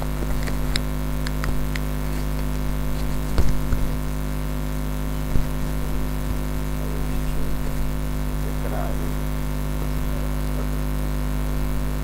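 Steady electrical mains hum from the open microphone and PA system. A few scattered clicks and knocks sound in the first half as the lectern microphones are handled, the loudest about three and a half and five and a half seconds in.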